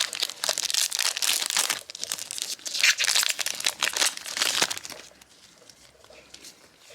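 Foil booster pack wrapper crinkling and being torn open by hand. The crackle runs dense for about five seconds, then dies down to faint handling.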